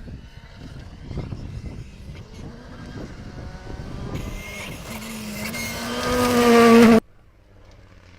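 Rally car approaching under hard acceleration, its engine note climbing in pitch and getting steadily louder until it cuts off abruptly about seven seconds in.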